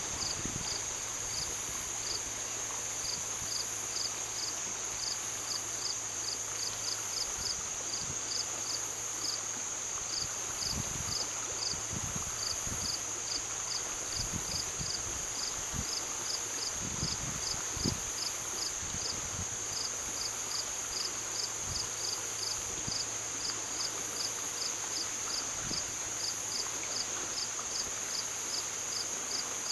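Crickets chirping in a steady, even rhythm of about two to three chirps a second over a continuous high insect drone, with the even rush of a stream beneath.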